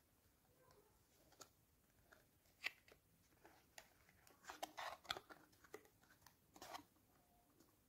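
Faint rustling, scraping and clicking of a paperboard carton being opened by hand and a cream jar slid out of it: scattered small taps and rustles, busiest around the middle.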